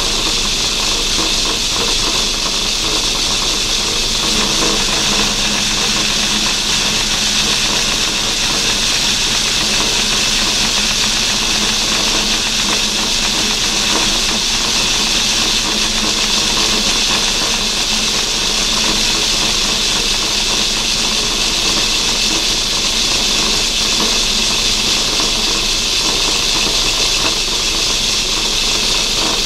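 Myford ML7 metal lathe running under power while a turning tool cuts an aluminium blank for a pulley: a steady, even hiss of the cut over the machine's running hum.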